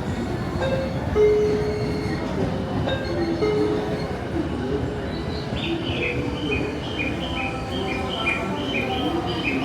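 Electric commuter train running at the platform with a steady rumble and a wavering mid-pitched whine. About halfway in, a run of short high chiming notes starts, about two a second, alternating in pitch.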